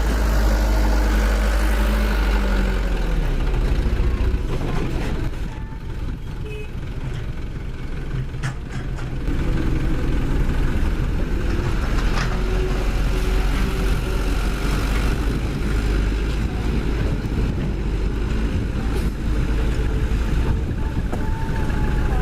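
Diesel engine of heavy construction machinery running. Its revs fall away over the first few seconds, it eases off, and it picks up to a harder, steady run from about ten seconds in.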